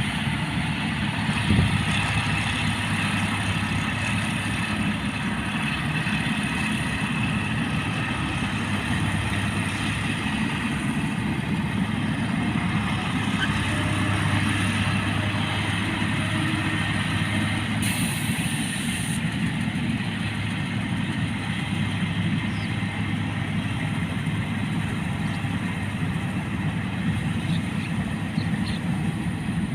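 Rice combine harvester with a cab, its diesel engine and threshing machinery running steadily, with a short high hiss about two-thirds of the way through.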